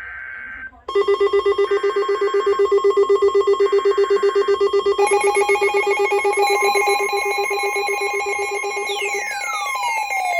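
Electronic alert tone: a quieter tone first, then a loud, fast-pulsing, ringtone-like tone from about a second in. More tones stack on about halfway through, and falling whistling sweeps come in near the end.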